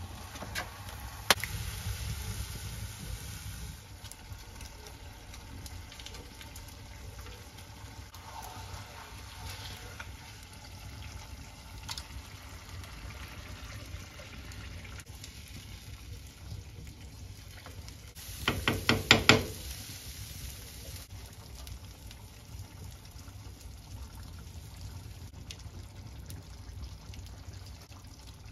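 Cooking at a cast iron pot over a fire: low liquid and stirring sounds, a sharp click just over a second in, and a quick run of about seven knocks a little past the middle, the loudest sound.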